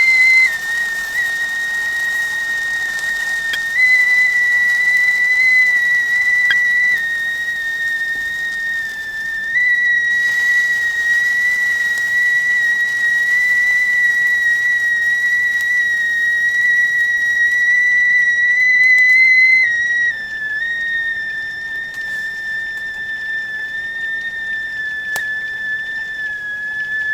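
Whistling teapot kettle at the boil: one steady, high whistle with a fainter overtone. Its pitch and loudness shift slightly every few seconds, and it drops a little in pitch and loudness about twenty seconds in.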